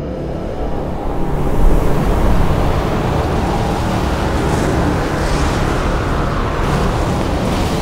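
Rushing wind: a steady noise of moving air that swells about a second and a half in, with several brief, higher whooshes in the second half.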